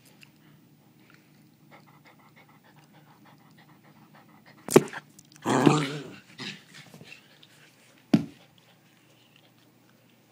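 A dog vocalising: faint panting for a few seconds, then a sharp bark about five seconds in, straight into a longer drawn-out bark, and another short sharp bark about eight seconds in.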